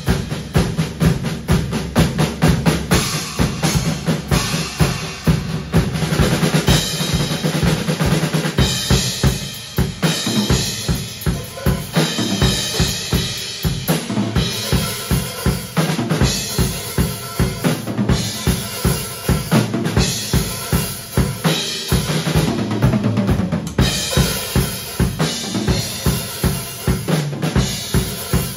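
Pearl drum kit with Zildjian cymbals played in a steady, driving beat: bass drum and snare strokes with cymbals over them.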